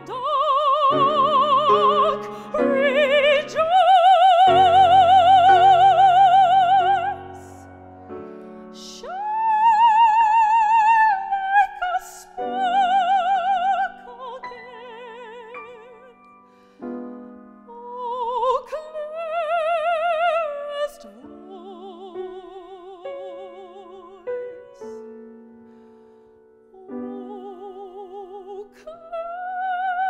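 A woman singing in classical operatic style, holding long high notes with wide vibrato, over piano accompaniment.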